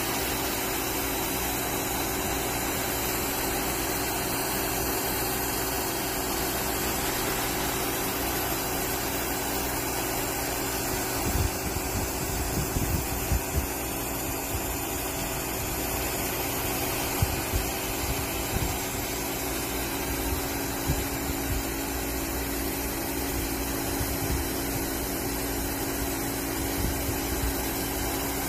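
Automatic orbital TIG welding machine running on a sanitary stainless tube: a steady hum and hiss with a few fixed tones, with scattered low knocks from about eleven seconds in.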